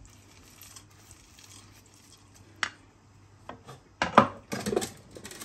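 Roasted seeds and nuts scraped from a bowl into a pan, with a few light clicks, then a wooden spoon stirring the dry seeds and fox nuts in the pan. The stirring is louder and irregular from about four seconds in.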